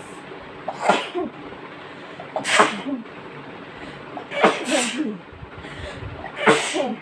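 Women sneezing, a run of four sneezes about one every two seconds, each a sharp burst with a falling voiced tail. The sneezes are brought on by sniffing chikni, a strong nasal powder.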